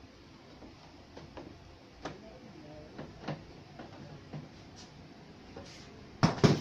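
Screwdriver working screws out of a CRT television's plastic back cover: scattered small clicks and ticks, then two loud knocks close together near the end.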